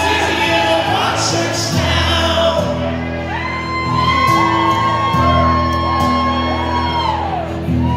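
Live acoustic guitar strummed through a PA, with long held wordless sung notes over it from about three seconds in until near the end.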